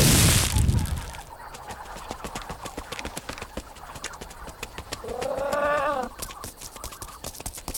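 Cartoon sound effects: a loud rushing noise dies away in the first second, then a run of quick, light footsteps as a small elephant walks off. About five seconds in, a short voice-like call rises and falls.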